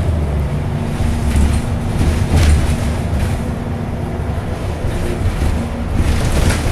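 Inside a 2009 Orion VII NG CNG transit bus under way: the compressed-natural-gas engine and drivetrain give a low, steady drone with a steady mid-pitched whine over road noise. Brief rattles of the cabin fittings come a few times.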